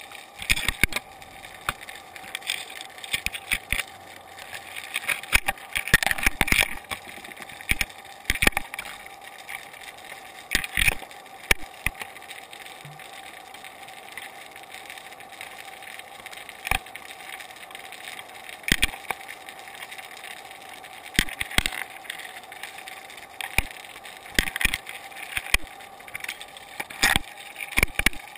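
Underwater sound picked up by a GoPro Hero 2 inside its waterproof housing: a steady hum with irregular sharp clicks and knocks, some in short clusters.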